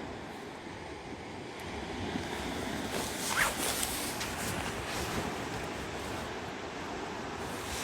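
Ocean surf washing on the beach, with wind noise on the microphone. About three seconds in there is a short, louder rush with a brief high rising tone.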